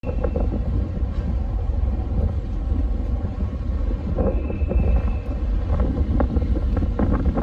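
Wind buffeting the microphone on a ferry's open deck, a steady low rumble.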